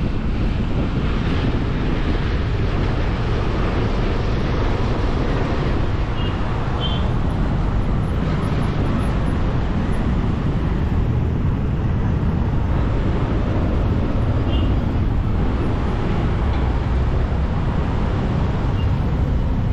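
Steady wind rumble on the microphone from riding a motorbike, mixed with the running of motorbike engines and street traffic. A couple of brief high beeps stand out about a third and two thirds of the way through.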